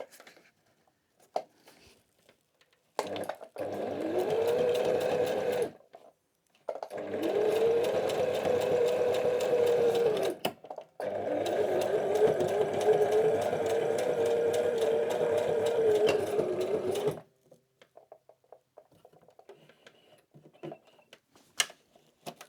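Sewing machine stitching through backpack shoulder-strap webbing in three runs with short pauses between them, the motor's hum rising in pitch as each run starts and then holding steady. Faint handling clicks come before and after the stitching.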